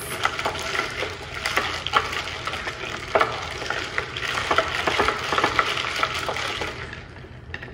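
Ice cubes clinking and rattling against the glass of a mason jar as a wooden spoon stirs them round in the tea: a dense run of small clicks that dies down near the end.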